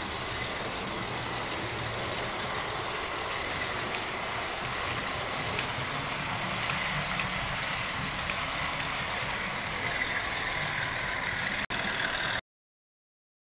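Hornby model train running along the track, a steady rolling rumble of wheels on rail with a faint motor whine. Cuts off abruptly near the end.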